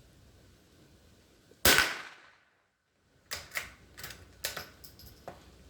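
A single sharp crack of a Marlin Glenfield .22 LR rifle shot about a second and a half in, ringing out for under a second. It is followed by a run of much quieter sharp clicks.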